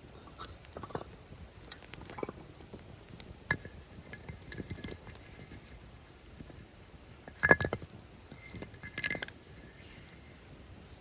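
Light knocks and taps of things being handled, with a metal clink that rings briefly about seven and a half seconds in and another ringing clatter about a second and a half later.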